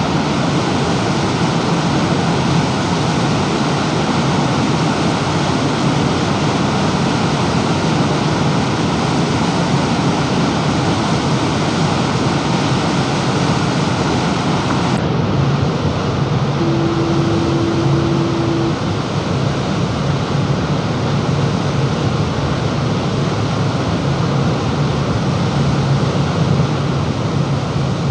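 Steady rush of wind on the microphone and water along the hull of a moving passenger boat, over the low steady hum of its engine. A short steady tone sounds for about two seconds a little past the middle.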